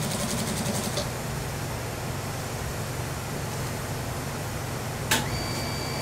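Industrial lockstitch sewing machine stitching a short fast run for about the first second, then a low motor hum. About five seconds in comes one sharp click, followed by a steady high whine.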